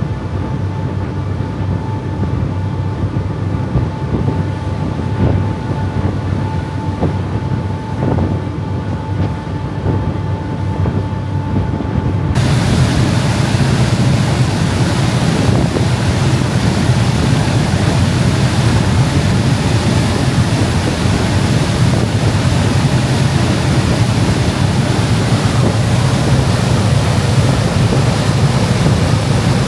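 Fast craft's engines running steadily, a low drone with a thin whine. About twelve seconds in the sound changes abruptly to a louder rush of churning wake water and wind on the microphone over the engine drone.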